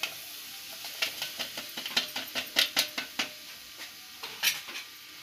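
Hot cooking oil sizzling with a steady hiss in an aluminium pan as chhole masala powder is added. A quick run of sharp clicks and pops comes about a second in, and another comes near the end.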